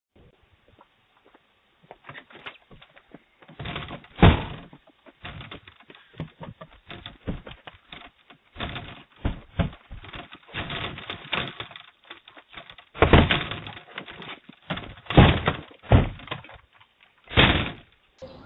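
Irregular knocks, thuds and rattles in uneven clusters, heard through a video doorbell's narrow-band microphone.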